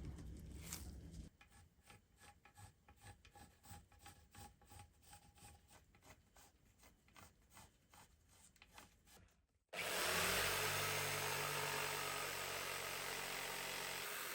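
Quick rhythmic strokes of a hand tool rasping or sawing the wood of an axe handle. About ten seconds in, a power tool starts abruptly and then runs steadily and louder.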